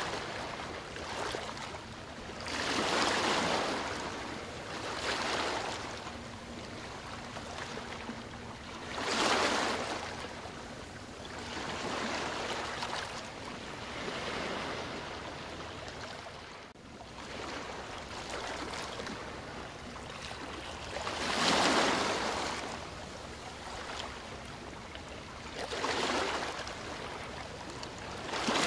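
Small waves washing against a river bank, surging and falling away irregularly every few seconds over a steady wash of water.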